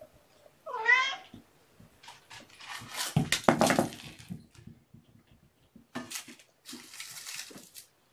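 A cat meows once with a short rising call about a second in. It is followed by bouts of rustling and clattering handling noise.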